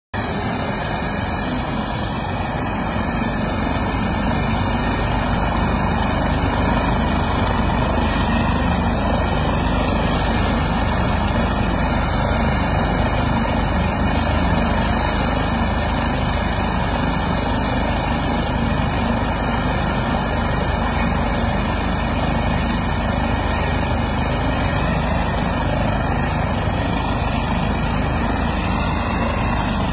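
Eurocopter EC135 air-ambulance helicopter running on the ground with its rotor turning: a loud, steady turbine and rotor noise that swells slightly a few seconds in.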